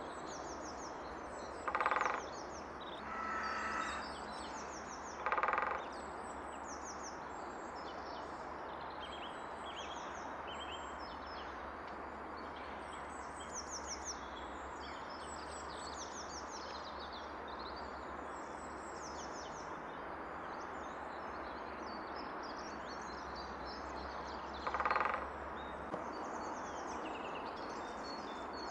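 Many small birds chirping and singing over a steady background hiss. Three loud short sounds stand out, about two, five and twenty-five seconds in.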